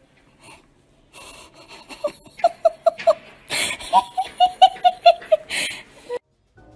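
A person laughing, starting about two seconds in: a quick run of high-pitched giggles, about five a second, broken by louder breathy bursts, then cut off suddenly.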